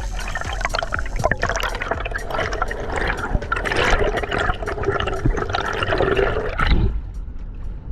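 Underwater sound during a freediver's ascent: bubbles gurgling and water rushing past the camera, with many small clicks, building up and then cutting off suddenly about seven seconds in as the camera nears and breaks the surface.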